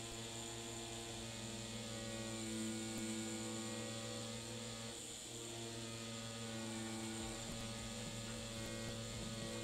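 Pen-style rotary tattoo machine running with a steady buzzing hum.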